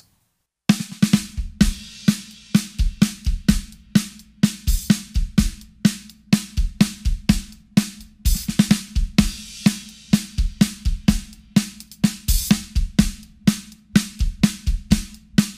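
Drum kit playing a Motown groove on bass drum, hi-hat and a Sonor AQ2 14x6 maple snare muffled by a wallet laid on its head, which gives the backbeat a dry, Motown-like snare sound. The groove starts after a brief silence about half a second in and keeps an even beat.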